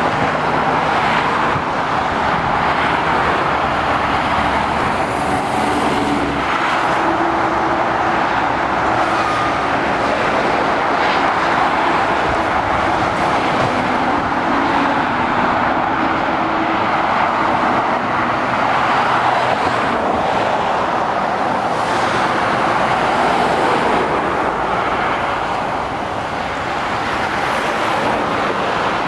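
Steady motorway traffic: continuous tyre roar from cars and heavy lorries at speed, under a low engine hum from the lorries.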